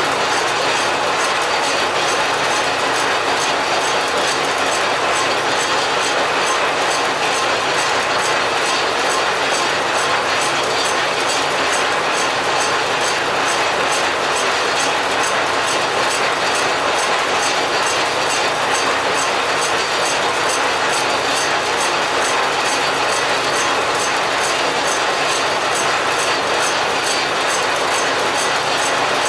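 Large American Tool Works geared-head lathe running steadily, its gears clattering as it turns a brazed cast-iron transmission housing, with a faint regular ticking about twice a second.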